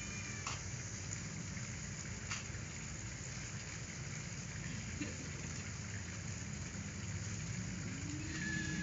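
Steady hiss over a low hum of background noise, with a couple of faint clicks in the first few seconds.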